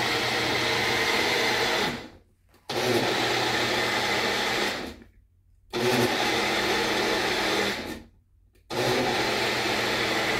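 Magic Bullet single-shot blender running in pulses of about two seconds, with three short stops in between, blending a blueberry, milk and yogurt smoothie.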